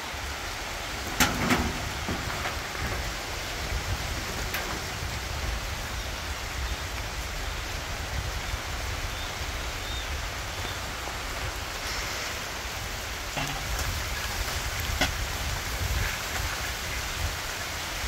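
Steady hiss of rain, with a few sharp clicks or knocks, the loudest about a second in.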